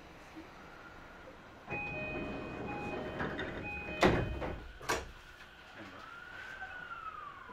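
Door-closing chime of a JR E235-1000 series electric train, a repeating beeping chime of a few steady tones, starting about two seconds in. The sliding doors then shut with a loud thud, followed about a second later by a smaller knock.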